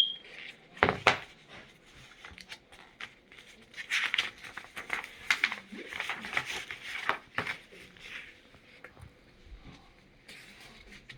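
Paper rustling and crinkling with many irregular sharp clicks as a picture book is handled and its pages are turned, with one sharp click right at the start.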